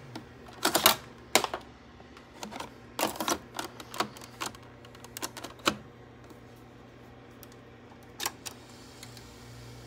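A plastic 8-track tape cartridge is pulled from and another pushed into the slot of an Akai CR-80D-SS quadraphonic 8-track deck, giving a run of sharp clicks and clunks of plastic on the mechanism. One more single click comes about eight seconds in.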